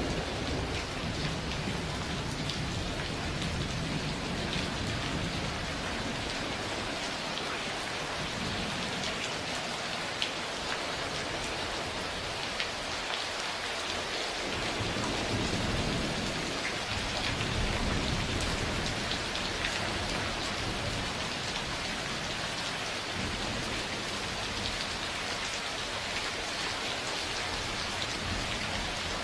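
Steady rain falling, with a low rumble of thunder rolling through about halfway in and fading away.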